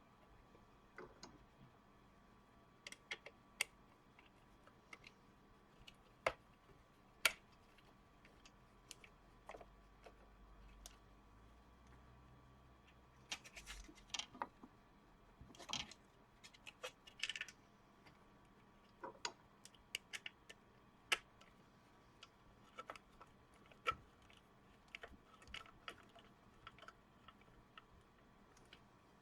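Scattered light clicks and taps of small parts being handled: a 120 mm computer fan and its screws being fitted into a 3D-printed plastic case. A faint low rumble runs for a few seconds in the middle.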